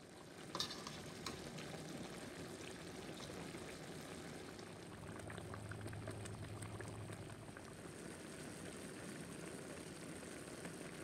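Pans simmering on the stove, chicken pieces in broth and a tomato-mushroom sauce cooking down: a steady, soft bubbling, with a couple of sharp pops in the first second or so.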